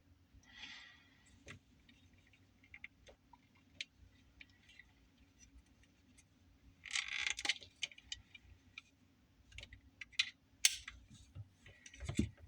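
Scattered small clicks and rattles of a cable connector and crimping tool being handled, with a short rustle about seven seconds in.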